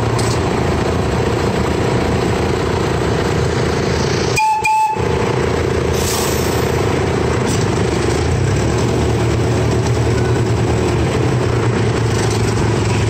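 Miniature amusement-park train locomotive running steadily under way, a continuous engine hum with track noise. A brief high tone cuts in once, about four and a half seconds in.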